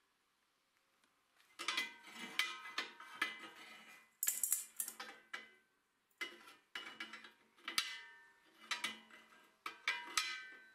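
Steel lever and latch on a homemade square-tube tractor frame being worked against its notched quadrant plate: bursts of metallic clanks and rattles that ring briefly, with a short high scrape about four seconds in.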